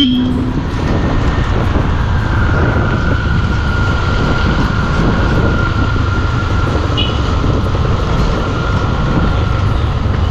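Motorcycle riding along a rain-wet road: steady engine, tyre and wind noise, with a short horn toot right at the start and a brief high beep about seven seconds in.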